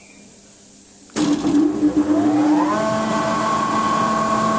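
Airman screw air compressor starting up in star (wye) connection about a second in: a sudden loud burst of machine noise, then a rising whine as the motor and screw spin up, levelling off into a steady running drone.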